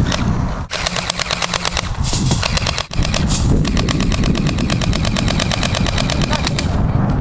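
Airsoft guns firing on full auto: a rapid, even stream of sharp clicks, more than ten a second, broken by two brief gaps, the first about a second in and the second about three seconds in.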